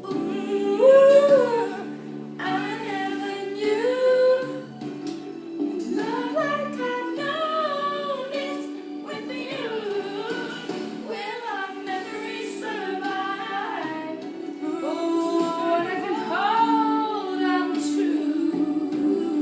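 A woman singing a melody over sustained held backing chords, with the swooping, gliding notes of a lead vocal above them.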